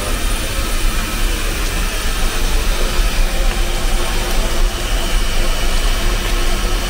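Steady, loud rushing noise with a low rumble underneath, from a steam locomotive's firebox fire burning in the cab.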